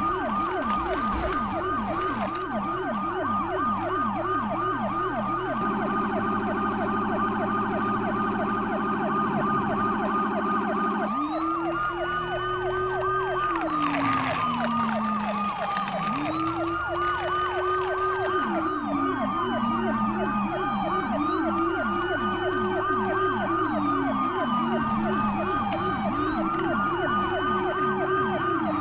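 Several electronic toy sirens sounding at once: a rapid yelp that repeats throughout, joined by a second siren that yelps at first, holds a steady tone from about six seconds in, and about eleven seconds in switches to a slow rising-and-falling wail.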